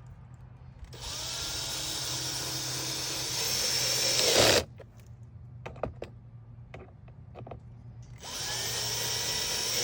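Power drill driving screws in two runs. Each run starts with a rising whine and builds to a louder finish as the screw is run in until the clutch clicks.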